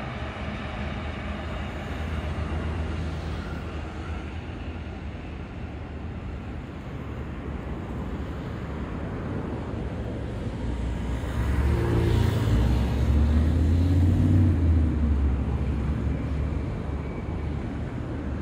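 Steady low rumble of city traffic and a passing commuter train, growing louder for several seconds past the middle.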